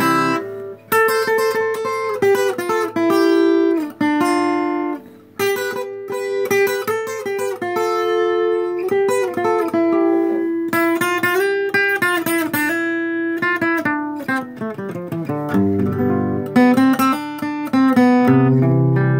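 Solo acoustic guitar, picking single notes and chords as an instrumental introduction, with deeper bass notes near the end.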